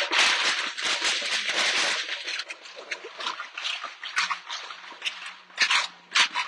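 A string of firecrackers going off: a dense, rapid crackle for about the first two seconds, thinning to scattered sharp bangs, with a few louder ones near the end.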